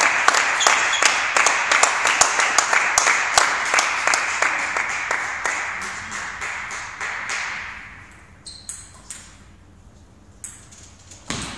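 Spectators clapping, a dense patter of claps that dies away over about eight seconds, followed by a few scattered sharp taps of a table tennis ball and racket.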